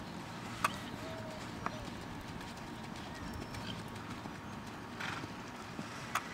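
Arabian mare cantering on a sand arena: soft, muffled hoofbeats, with a few sharp clicks standing out, about a second in, near two seconds and near the end.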